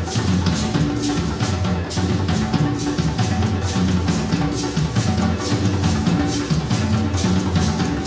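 Live ensemble music from a conducted improvisation: drums keep a steady beat over low sustained notes that shift in pitch every second or so.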